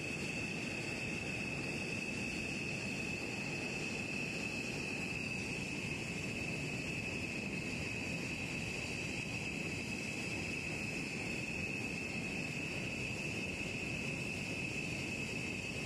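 Jet engines running steadily at idle: an even rumble under a constant high-pitched whine.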